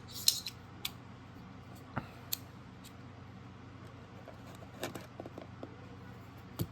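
Scattered sharp clicks and light knocks of a multitool's packaging being handled and opened, the loudest just after the start, with a few more about two seconds in and near the end.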